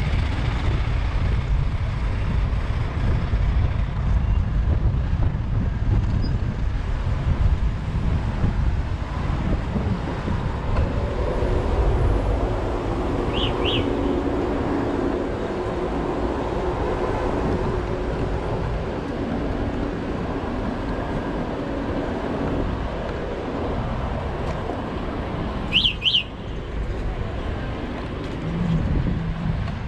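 City traffic with a steady low rumble of wind on the microphone from riding an e-bike. Short high double chirps sound twice, about halfway through and near the end.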